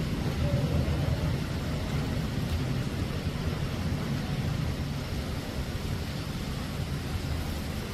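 Steady low rumble with an even hiss, with no separate knocks, calls or voices standing out.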